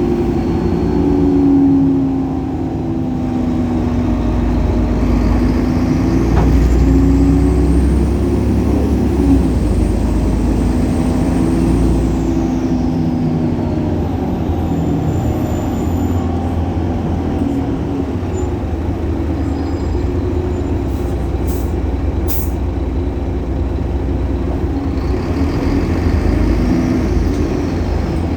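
Solaris Urbino 18 articulated bus's DAF Paccar PR265 diesel engine running under way, its pitch shifting with speed. A high whine rises and then falls away over several seconds in the first half, with a shorter one near the end, and a few short clicks come about three quarters through.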